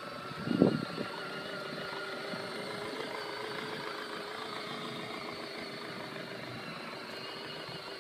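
Electric motor of a children's ride-on toy car running with a steady whine. There is a brief loud thump about half a second in.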